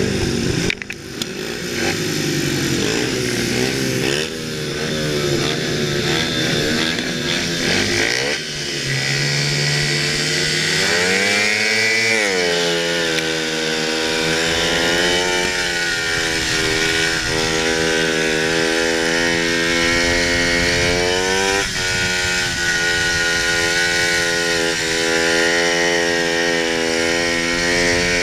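Speedway bike's 500cc single-cylinder methanol engine running hard through a practice lap. Its pitch falls and rises over the first few seconds, climbs steeply about eleven seconds in, then holds high and steady apart from a brief dip a little after twenty seconds.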